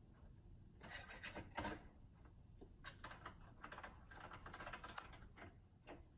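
Faint light taps and clicks as a small brass workpiece and a metal clamp are handled and positioned on a wooden workbench.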